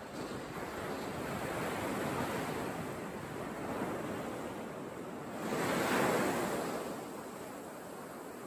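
Surf washing onto a sandy beach: a steady rush of waves that swells louder about six seconds in, with some wind on the microphone.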